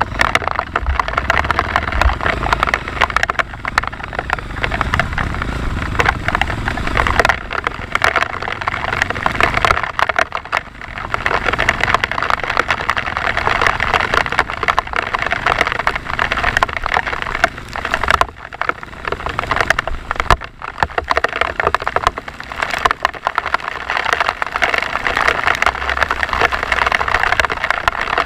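Off-road motorcycle engine running on a trail, mixed with the hiss of rain, its loudness rising and dipping briefly a couple of times.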